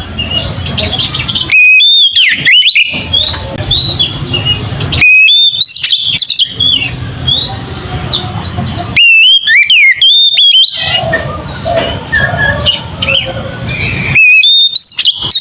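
Oriental magpie-robin (kacer) singing in loud, clear whistled phrases, four bursts of rising and falling notes about four seconds apart, with softer chirping between them.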